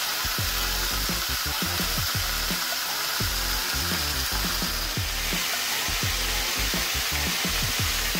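Seasoned chicken breasts sizzling as they sear in oil in a nonstick skillet, a steady dense hiss.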